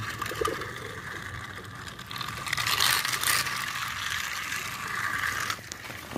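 Small battery-powered toy car from a Create A Road dinosaur track set running along its bendable plastic track, its motor and gears making a steady mechanical whirr with a few clicks.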